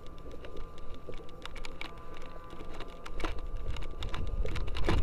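Footsteps and handling noise of a player getting up and walking on a forest floor with gear: irregular clicks and scuffs, with a low rumble of movement that grows louder in the second half.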